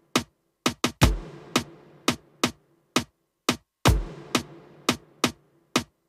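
Electronic drum kit sounds played live with sticks on a tabletop pad kit: a simple beat of sharp snare and tom hits with dead silence between strokes. A deep kick comes about a second in and again near four seconds.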